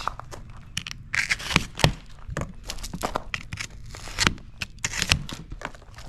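Irregular knocks, scrapes and rustling from T1-11 plywood siding panels being handled and shifted during installation.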